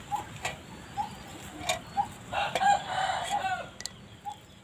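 A rooster crowing once, about halfway through, with short brief clucks before and after and a few light clicks.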